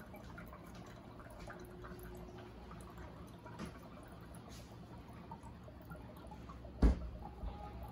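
Quiet water dripping and trickling in a small fish tank fed by a plastic-bottle air pump and tube, with small scattered plips. A single sharp thump about seven seconds in.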